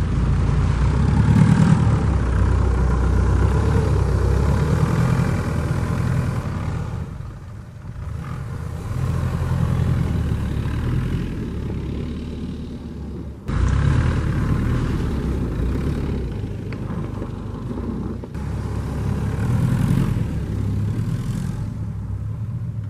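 Jeep Liberty CRD's 2.8-litre four-cylinder turbodiesel revving hard in four-low as the vehicle works through packed snow. The engine note rises and falls several times, with a sudden surge about halfway through.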